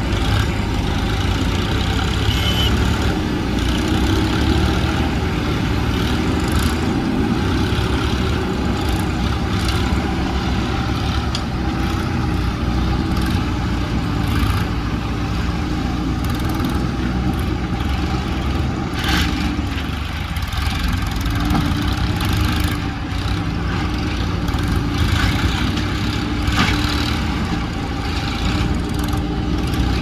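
Diesel farm tractor engines running steadily under load. About two-thirds of the way through, the engine speed dips briefly and recovers. A few short knocks are heard.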